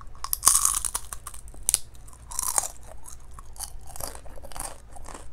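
A person chewing a mouthful of food by mouth, in a series of short, crackly bursts a second or so apart.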